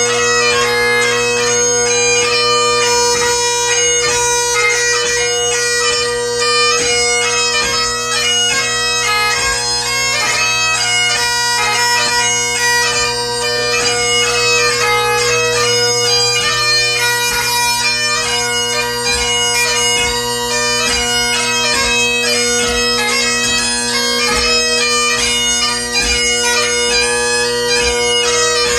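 Great Highland bagpipe played solo: the drones hold one steady tone underneath while the chanter plays a fast, continuous melody with quick note changes.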